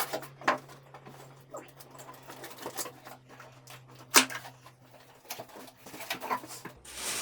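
Handling noise from unboxing: scattered light taps and clicks of packaging and parts being moved, with one sharper click about four seconds in, over a faint low hum. A steady hiss comes in near the end.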